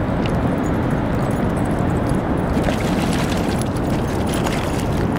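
Wind buffeting the microphone: a steady, loud low rumble. Faint light splashes come through around the middle as a dog wades through shallow water.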